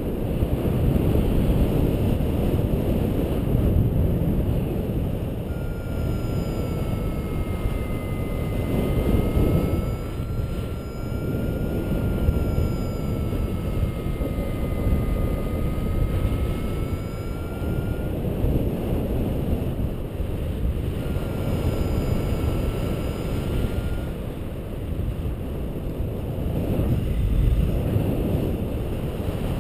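Airflow rushing over the microphone of a paraglider in flight. A faint variometer tone wavers slowly up and down in pitch from about five seconds in to about eighteen seconds, then sounds again briefly near the end.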